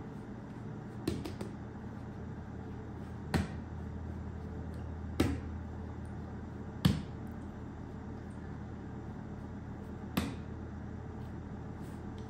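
Hands shaping sourdough on a wooden bench: five sharp slaps and taps of hands and dough against the wood as the loaf is folded and rolled, over a steady low hum.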